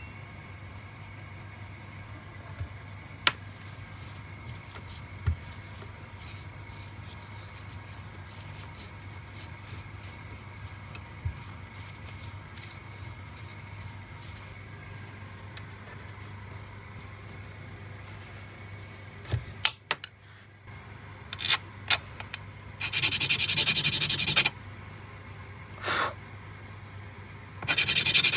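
Light clicks and taps of small metal parts being handled over a low steady workshop hum, with a quick run of sharper clicks about two thirds in. Near the end come three short bursts of harsh rubbing against abrasive paper, the first and last over a second long.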